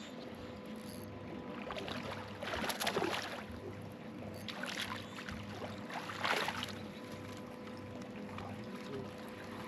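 Water splashing and trickling at the side of a boat as a bass is landed with a net, with two louder splashes about three and six seconds in.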